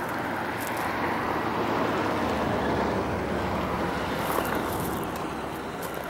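A road vehicle driving past, its sound swelling to a peak a couple of seconds in and then fading away.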